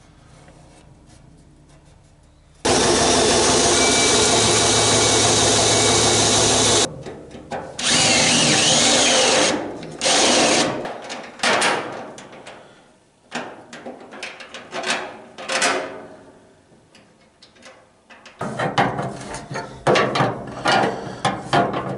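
A power tool working sheet metal, run in bursts: first a steady run of about four seconds, then two shorter runs and some stop-start use. Near the end come a quick string of metallic clicks and knocks as a wrench tightens the hose bulkhead fittings on the firewall.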